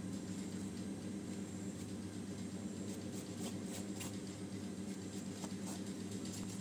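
Metal spoon scraping and tapping on a steel plate while a roasted leaf wrapping is peeled open and crinkled, a few soft clicks over a steady low hum.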